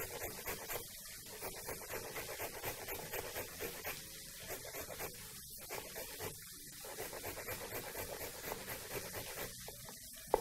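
Carrot being grated on a metal box grater held against a wooden chopping board: a steady run of quick scraping strokes, several a second, with one sharper knock near the end.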